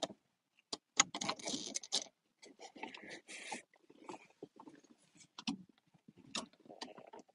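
Sharp clicks, knocks and scraping rustles as a pickup truck's bed cover is worked loose and eased open from inside.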